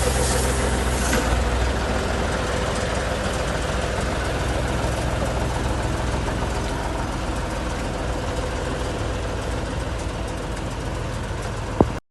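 Heavy tractor's diesel engine idling steadily after a full overhaul, with an air hiss dying away in the first second. A sharp click near the end, then the sound cuts off.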